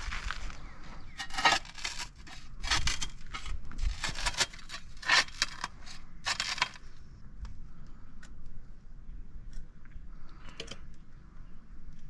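Square-point shovel scraping and scooping sand and dumping it onto a paver bed: several gritty scrapes in the first seven seconds, then a fainter scrape near the end.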